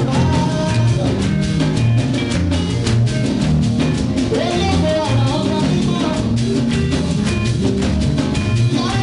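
A church congregation singing a lively hymn to a live band with drums and bass, at a steady beat.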